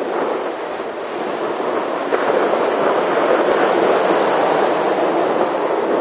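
Wind rushing over the microphone of a camera riding on a moving bicycle, mixed with road noise. It is a steady roar that gets louder about two seconds in.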